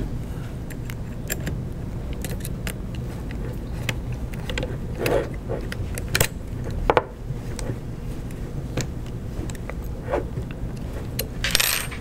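Small metal tools clicking and scraping against bolt hardware as an M3 nylon lock nut is tightened with a hex key and a small flat wrench. The clicks are irregular, with a couple of sharper ones about six and seven seconds in, over a steady low hum.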